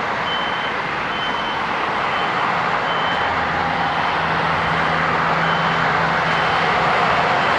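A construction vehicle's reversing alarm beeping about once a second over the steady running of heavy road-paving machinery; the beeps fade out partway through and return near the end, while an engine hum grows about halfway in.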